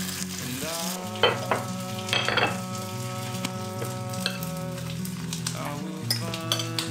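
A metal utensil scraping across toasted bread as a spread is worked over it, with a few sharp scrapes and clinks against the plate, over soft background music. The first second holds a hissing stir from the pot.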